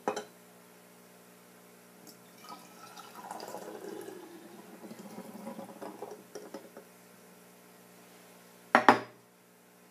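Liquid poured from two glass beakers into a large glass jar, splashing and filling for a few seconds from about two and a half seconds in, with a light glass clink at the start. Two sharp, loud knocks near the end are the loudest sound.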